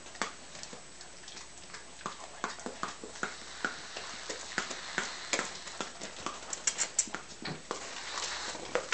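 Weimaraners licking and smacking at whipped cream from an aerosol can: a run of quick, irregular wet mouth clicks.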